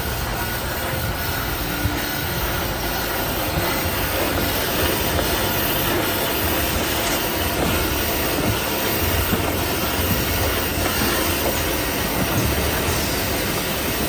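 XY AI 400 band saw cutting machine for toilet paper and kitchen towel rolls running: conveyor, feed and saw make a steady, dense mechanical noise as paper logs are fed through and cut into rolls.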